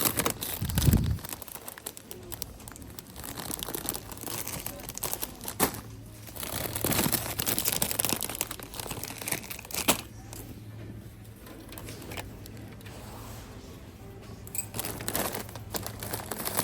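Crinkly plastic snack bags and wrappers being handled and dropped into a shopping cart, in irregular bursts of rustling with a few sharp clicks and a low thump about a second in.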